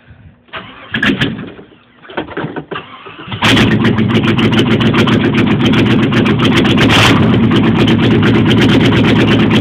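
Open-exhaust AMC 360 V8 in a 1989 Jeep Grand Wagoneer being started: the starter cranks unevenly for about three seconds, then the engine catches and runs loud and steady.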